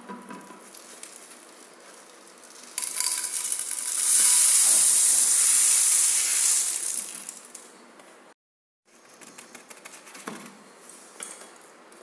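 Granulated sugar and coffee powder sliding off a folded card into an empty plastic bottle: a steady gritty hiss that builds about three seconds in and lasts about five seconds. After a short gap come a few light clicks and taps of the plastic bottle and card.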